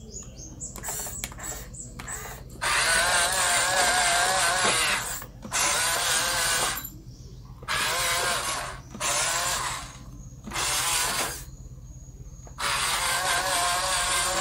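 Huina 1753 RC dump truck's electric motors and gearing whining in five bursts of one to two seconds, the last as the tipper bed rises.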